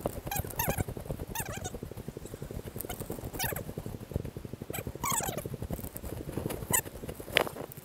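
Dense, fast crackling and rustling of footsteps on dry corn litter and stalks brushing past while walking a corn-maze path. A few brief voices break in, the loudest near the end.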